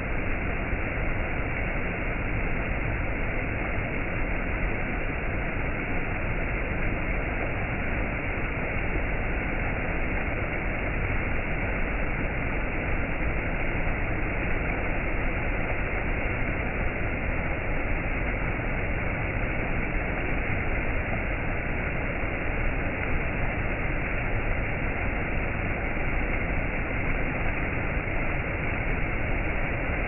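Shallow rocky stream rushing and splashing over low rock ledges in small cascades: a steady, even rush of water.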